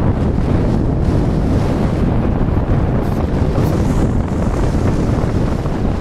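Strong wind buffeting the microphone: a loud, steady low rumble.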